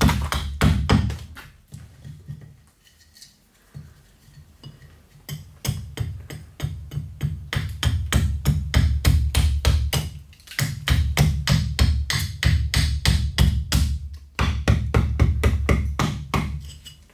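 Background music with a fast, steady percussive beat over a bass line, thinning out for a few seconds near the start.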